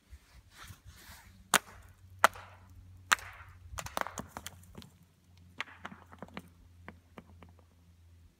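Footsteps on rock: several sharp clicks and scrapes of shoes on stone and grit, the loudest in the first half, then lighter ticks. A faint low hum lies underneath.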